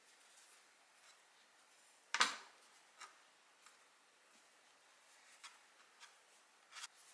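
Soft rustling and small crackles of a thick slice of white bread as fingers press and pinch it, with a single louder knock about two seconds in.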